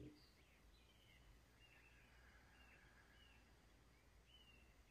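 Near silence: faint room tone with short, faint chirps, like distant birdsong, repeating every second or so.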